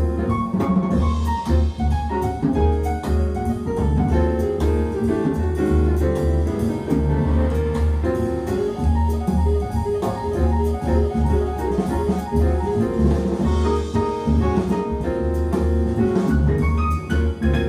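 Jazz with piano, bass and drums played back through B&W 802D3 floor-standing hi-fi loudspeakers and picked up by a microphone in the room.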